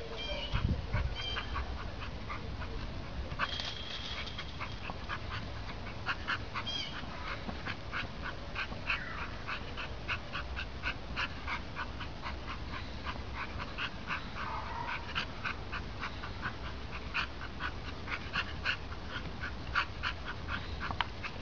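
A dog keeping a ball bouncing on its nose: a long run of quick light ticks, about three or four a second, with a few short whines.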